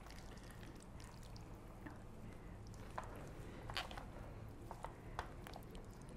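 Faint wet squishing and a few small clicks as hands pull kitchen twine tight around a raw, bacon-wrapped stuffed pork loin.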